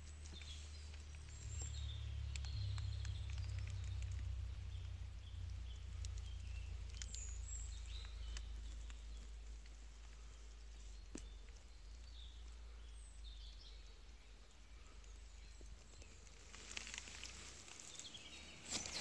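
Low rumble on the microphone with faint, scattered bird chirps and a few small clicks. Near the end come rustling and crackling as the person moves over the stony ground.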